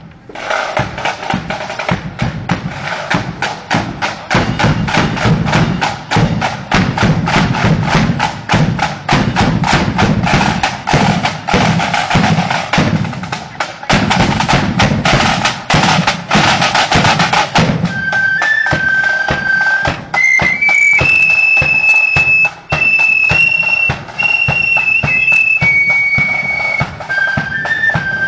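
Marching flute band on parade. Snare and bass drums beat a fast, steady rhythm on their own for most of the first part. About two-thirds of the way in, the flutes join, playing a high melody over the drums.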